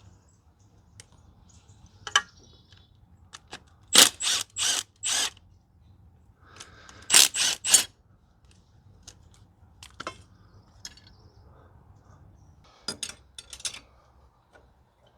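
A power tool runs in short bursts while bolts are loosened during turbocharger removal. Four quick bursts come about four seconds in and three more about three seconds later, with scattered clicks and knocks of tools and metal parts between them.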